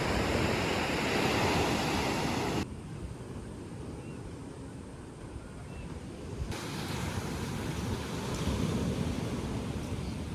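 Sea surf washing in, with wind blowing on the microphone. About two and a half seconds in, the sound drops suddenly to a duller, quieter stretch, then returns about four seconds later.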